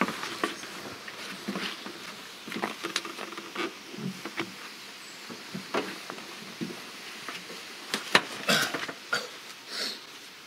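Irregular metal clinks and knocks from a gearbox hanging on a block and tackle as it is guided down into a tracked vehicle's cab, with a cluster of sharper clanks about eight seconds in.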